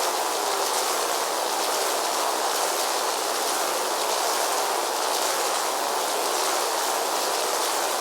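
Steady, even hiss of rain-like ambient noise, unchanging throughout.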